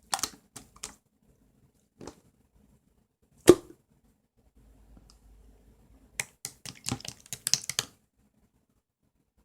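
Scattered sharp clicks and light taps, with one louder knock about three and a half seconds in and a quick run of clicks near the end.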